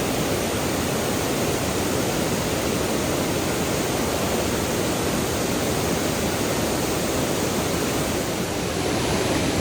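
Creek water rushing steadily over a waterfall and shoals: a constant, even roar of falling water.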